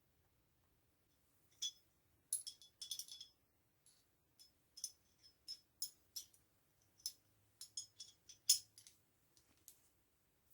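Light metallic clinks and clicks, about fifteen at irregular intervals starting a couple of seconds in, some with a brief ring: small metal hardware and tools being handled during a winch install.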